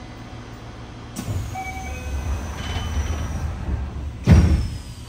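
Inside a Yokohama Blue Line 3000R subway car: the train's running sound, with the Mitsubishi IGBT-VVVF inverter and traction motors. About a second in, a deep rumble swells with high whining tones that slide slowly downward and a few short stepped tones. A loud, sharp bang-like burst comes about four seconds in.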